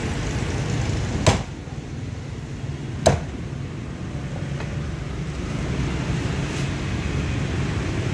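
A heavy cleaver chopping twice through crisp-skinned roast pork into a thick wooden chopping block, two sharp chops about two seconds apart, with a faint tap later. A steady low rumble of street traffic runs underneath.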